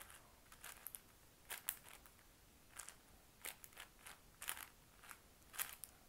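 6x6 Rubik's cube turned by hand through an algorithm to pair the last two edges: faint quick plastic clicks and rasps of its layers turning, about two a second and irregular.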